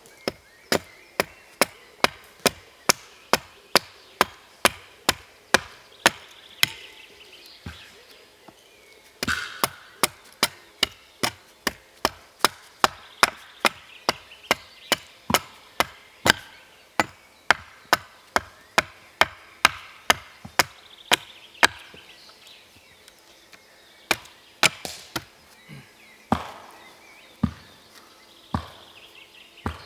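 Wood being chopped: a fast, steady run of sharp strikes, about two or three a second. There is a short break about eight seconds in and another around twenty-two seconds.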